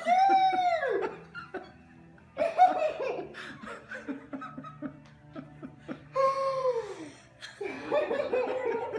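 Excited human laughter and high-pitched squeals in several bursts, including a long cry that falls in pitch about six seconds in.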